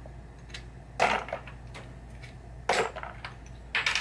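Small hard pinball playfield parts clicking and clattering as they are handled and set down by hand, in three short clatters with lighter ticks between.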